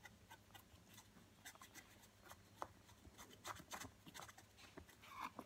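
Faint, scattered scratches and light taps of a colouring tool working over cardboard.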